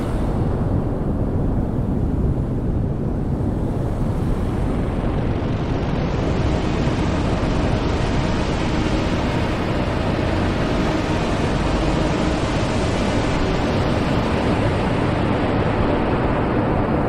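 Noise music improvisation: a dense, steady wall of low noise, with a higher hiss that rises about four seconds in and ebbs away again over the last few seconds.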